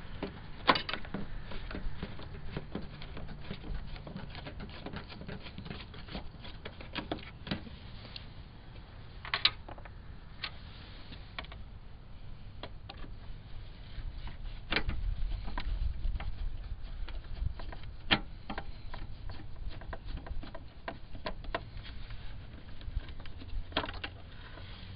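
Irregular small clicks and taps of a Phillips screwdriver and hands working at the plastic headlight housing of a 1993 Jeep Grand Cherokee as its screws are backed out, with a few sharper clicks standing out.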